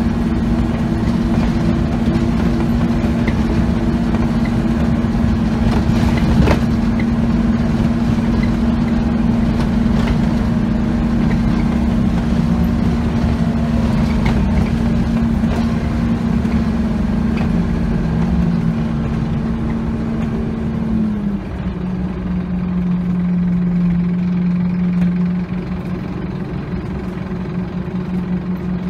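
Scania OmniCity diesel double-decker bus heard from inside while under way: a steady engine and drivetrain drone with knocks and rattles from the body over bumps. About two-thirds of the way through, the drone drops to a lower pitch.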